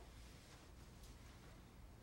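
Near silence: room tone, with a couple of faint soft clicks about a second in.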